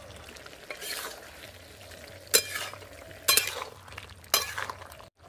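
Metal spatula stirring vegetable curry in a metal cooking pot, clinking and scraping against the pot about four times, over a faint steady sizzle of the simmering curry.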